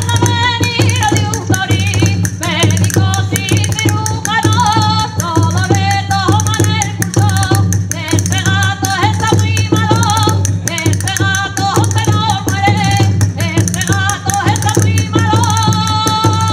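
A woman singing a Castilian sorteao folk tune in short, wavering phrases while beating a steady, fast rhythm on a square frame drum.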